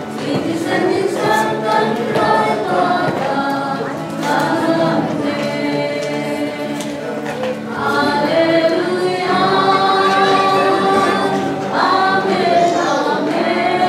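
A small mixed group of men's and women's voices singing a hymn in Falam Chin in harmony, holding long notes in the second half.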